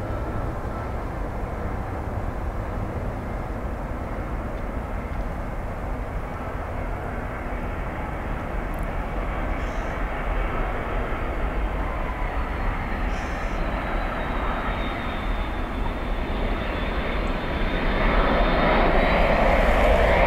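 Boeing 757 jet engines on final approach and landing: a steady roar with a faint high whine that slowly falls in pitch. It grows noticeably louder about two seconds before the end.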